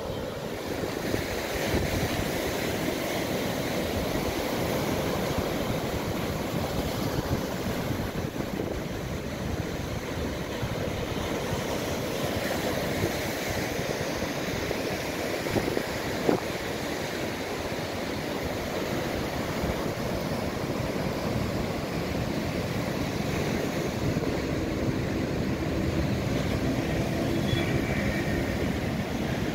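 Heavy, storm-driven sea surf breaking and washing over a rocky, eroding shore, a steady wash of waves with wind buffeting the microphone.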